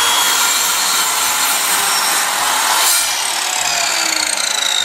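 Slide compound miter saw (PA SMS-190T) cutting through a slightly warped wooden board. About three seconds in the cut finishes and the motor's whine falls steadily as the blade spins down.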